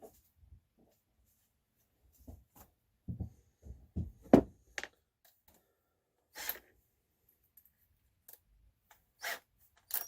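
Scattered clicks, knocks and light clunks from tools and small metal parts being handled at a workbench, the sharpest knock about four seconds in; no power tool is running.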